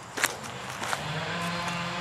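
A couple of short knocks from the camera and the squirrel being handled in the first second, then a steady engine hum from a motor vehicle that starts about a second in and holds a constant pitch.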